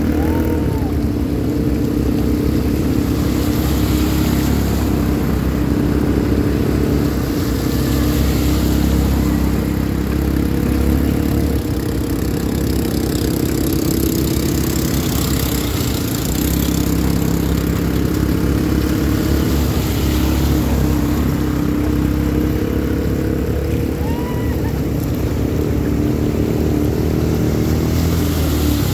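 ATV engines running steadily as the quad bikes wade through a shallow river, with water rushing and splashing around the wheels.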